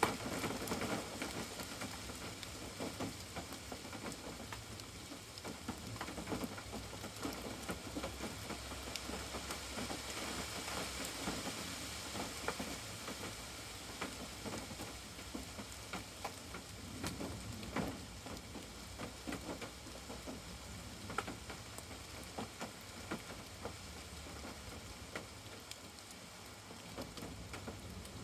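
Steady rain falling, a continuous patter with many irregular individual drops and drips ticking through it.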